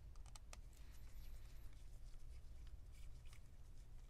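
Faint, scattered small clicks and light taps of a precision screwdriver and gloved fingers working at a laptop's Wi-Fi card, over a low steady hum.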